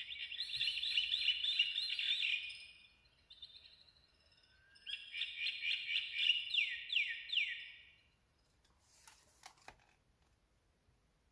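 Recorded tropical birdsong played from a children's sound book's button speaker: rapid, high chirruping and twittering in two bursts of about two to three seconds each. Near the end a page is turned, giving a few short taps and rustles.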